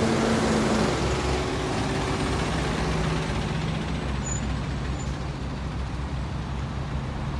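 Heavy trucks running on the road, a steady low engine rumble, with a held horn note that ends about a second in.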